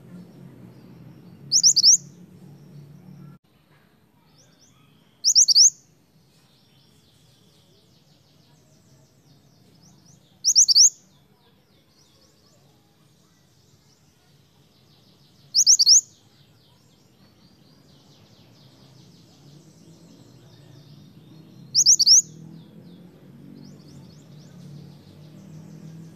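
Female scarlet minivet (mantenan/kuniran) calling: five short, loud, high rising whistled calls, each a quick run of two or three notes, spaced about five seconds apart, with faint soft twittering in between.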